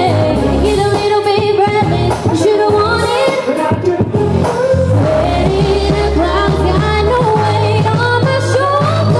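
A woman singing a pop song live into a microphone over loud amplified backing music with a steady, heavy bass line.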